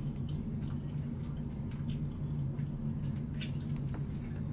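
Soft eating sounds: faint chewing and small clicks of chopsticks against a bowl, with one sharper click a little past three seconds in, over a steady low hum.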